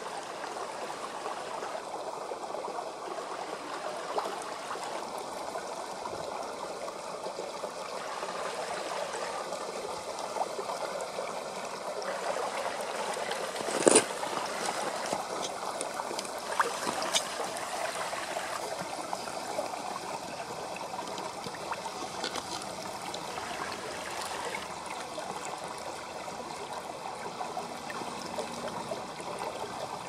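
Shallow rocky mountain stream running and trickling over stones, steady throughout. A single sharp knock sounds about fourteen seconds in, with a few fainter clicks shortly after.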